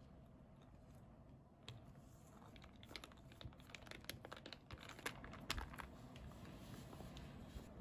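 Faint scattered clicks and crackles of a wide straw stirring and scooping thick whipped dalgona coffee foam in a glass of iced latte, busiest from about two to six seconds in.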